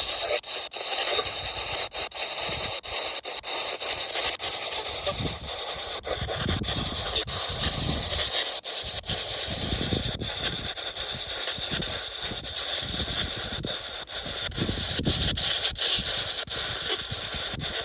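Spirit box sweeping through radio stations: a steady hiss of static chopped by quick clicks as it jumps from station to station, with brief snatches of broadcast sound in between.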